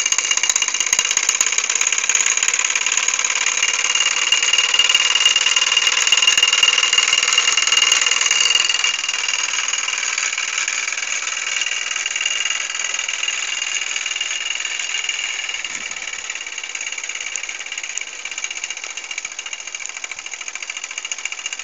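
Mamod Minor 1 toy steam engine running fast, a steady high buzzing rattle from the little engine as it vibrates on its base. It grows gradually quieter over the second half.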